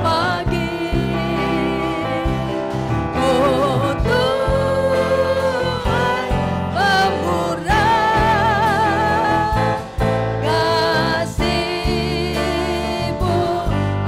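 Indonesian Christian worship song sung by several voices with a live band of acoustic guitar, bass guitar, drums and keyboard; about halfway through the singers hold long notes with vibrato.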